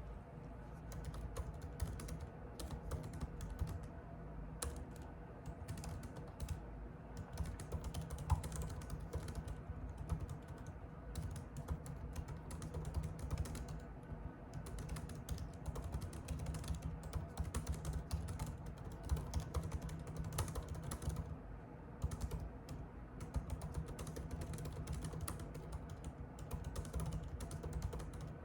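Computer keyboard being typed on: quick runs of key clicks broken by short pauses every few seconds, over a steady low hum.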